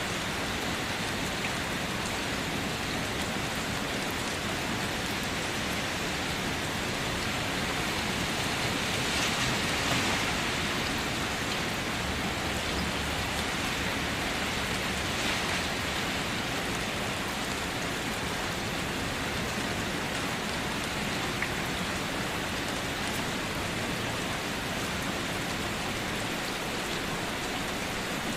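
Steady light rain falling on a surface, with scattered individual drops ticking through it and a slight swell in intensity about a third of the way in.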